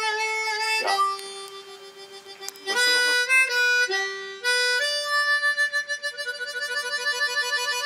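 Closing music: a single melody line of long held notes stepping up and down, turning into a fast wavering pulse over the last three seconds.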